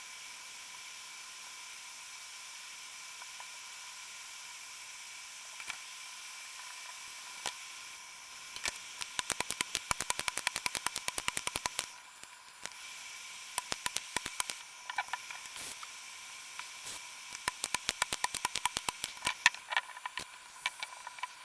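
Runs of quick, small, sharp clicks from hands working on a DualSense controller's parts: a few single clicks, then dense bursts from a little under halfway in and again near the end. Under them is a steady recording hiss with a faint whine.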